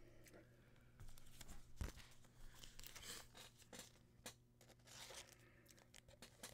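Faint rustling and crinkling of foil trading-card pack wrappers and cards being handled, with scattered light clicks and one soft thump on the table a little under two seconds in.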